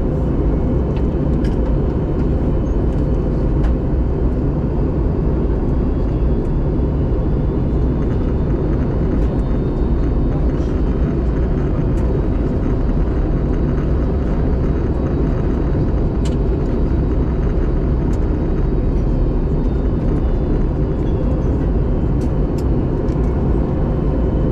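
Airliner cabin noise during the descent to land: a steady rumble of the engines and rushing air, heard from inside the passenger cabin, with a faint steady high whine.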